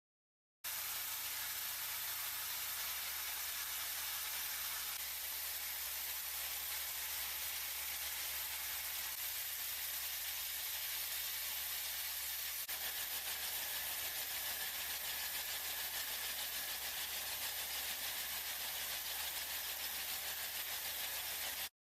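Steady machinery noise: an even hiss with a constant low hum beneath, starting and cutting off abruptly.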